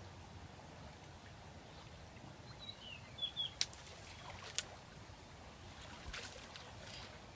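Faint water sloshing from a man wading and working his hands in shallow muddy water, with a few short bird chirps near the middle and a few sharp clicks in the second half.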